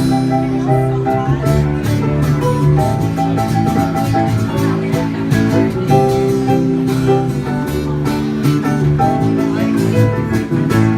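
Instrumental break from a live band: a guitar carries the melody over bass and a steady drum beat, with no singing.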